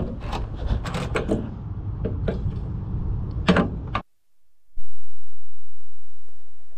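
Wind rumble on the microphone with sharp clicks and knocks of hands working the Ercoupe's wing fuel filler cap, the loudest clack about three and a half seconds in. At about four seconds the sound cuts off to a faint steady hum.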